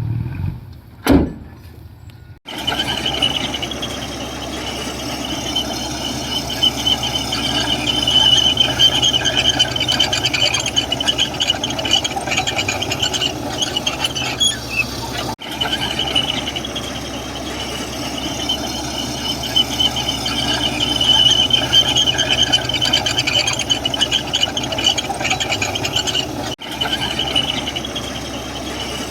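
Komatsu crawler bulldozer working, its steel tracks squealing continuously in a high, wavering tone over the running diesel engine. A short sharp sound comes about a second in, before the squeal starts.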